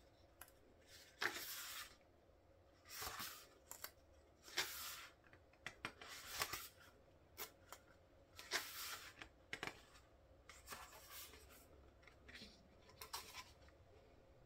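Pages of a CD album's photobook being turned and smoothed by hand: a string of soft paper swishes and rubs, one every second or two.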